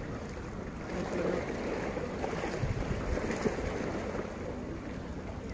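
Steady rumble of wind on the microphone over the wash of sea waves against the rocks.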